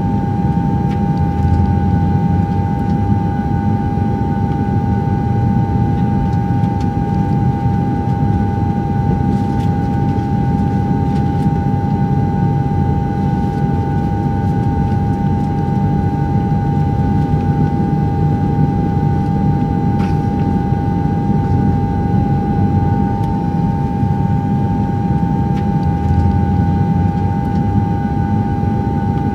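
DJI Phantom 2 quadcopter's motors and propellers running with a steady, unchanging whine, recorded by the GoPro camera on board, over a dense low rumble of prop wash and wind on the microphone.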